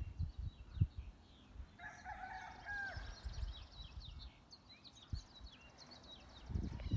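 A rooster crows once, about two seconds in, over many small birds chirping, with a few low thumps on the microphone.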